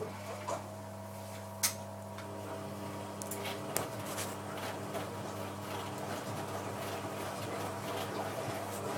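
Hoover 1100 De Luxe washing machine's motor switching on with a steady electric hum that slowly grows a little louder, with a few sharp clicks and knocks from the machine in its final rinse and spin programme.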